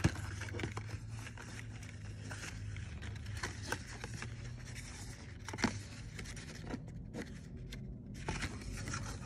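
Paper and cardboard being handled: a lipstick sample card and packaging rustling and scraping against an orange cardboard box, with scattered light clicks and taps. A low steady hum sits underneath.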